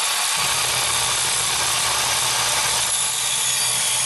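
Electric circular saw running at a steady whine as its blade cuts through a sheet of OSB board.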